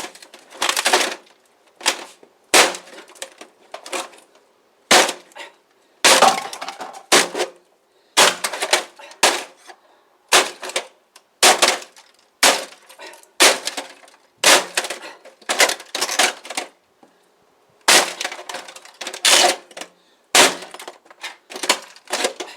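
An inkjet printer being smashed with a crowbar: blow after blow, roughly one a second and irregularly spaced, its casing cracking and breaking apart.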